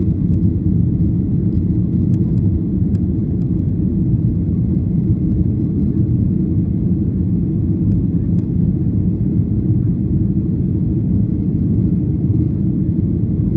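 Airliner cabin noise: a steady low rumble of the engines and rushing air heard from inside the passenger cabin.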